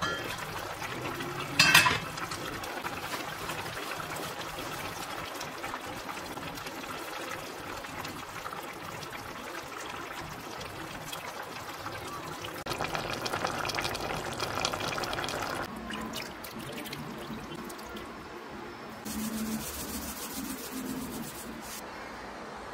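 A stainless steel pot lid clanks once, sharply, about two seconds in. Then a pot of spicy eggplant and beef stew simmers and bubbles, louder for a few seconds in the middle while it is stirred with a wooden spoon.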